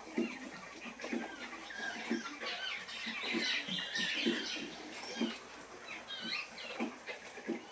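Sow grunting in short, repeated low grunts, her call to the piglets to come and suckle, with many short high squeaks and chirps over it.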